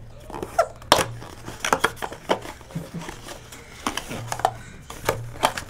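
Trading card pack being opened and its cards handled: the wrapper crinkles and the cards snap and slide against each other in an irregular run of sharp crackles and ticks.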